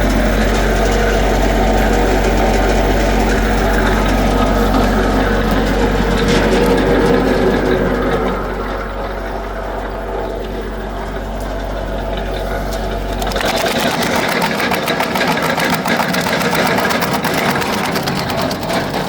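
Remet CNC R120 wood chipper with conveyor running, a steady machine drone over a deep hum. About two-thirds of the way through the deep hum drops out and a fast, rattling clatter takes over.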